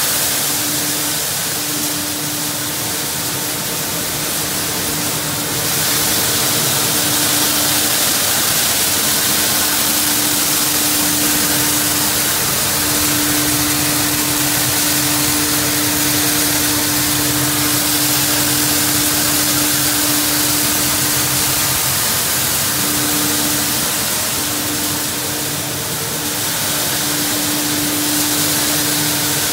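Rigid PE/PP plastic washing line machinery running: a steady motor hum under a loud, even hiss as shredded plastic flakes pour out of the line. The sound gets a little louder about six seconds in.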